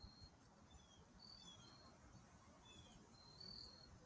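Near silence: faint room tone with several faint, short, high chirps scattered through it, some falling slightly in pitch.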